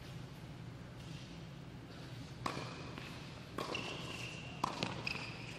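Tennis ball struck by rackets in a doubles point on an indoor hard court: a serve about two and a half seconds in, then a few sharp hits and bounces. Short high sneaker squeaks on the court follow some of the hits, over a steady low hum in a large hall.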